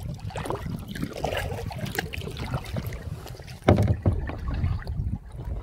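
Kayak paddling on calm open water: paddle blades dipping and dripping in short splashes over a steady low rumble, with one louder thump about two-thirds of the way through.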